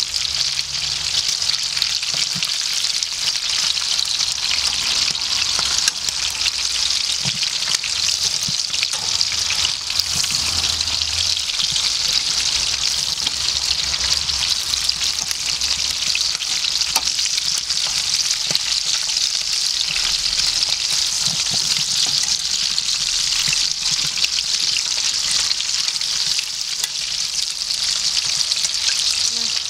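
Sliced steak frying in hot clarified butter in a stainless steel pan over charcoal, a steady sizzle, with a few light clicks as tongs turn the pieces.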